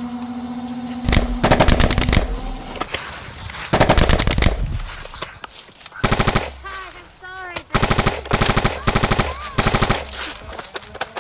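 Rapid automatic gunfire in about eight short bursts, each under a second long, coming in quick succession.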